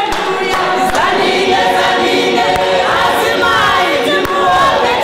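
A choir of many voices singing together, with several melodic lines overlapping.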